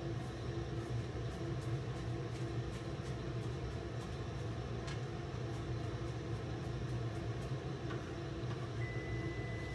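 Chef's knife rough-chopping parsley on a plastic cutting board: a run of quick, irregular knocks over a steady low hum. A thin high steady tone comes in near the end.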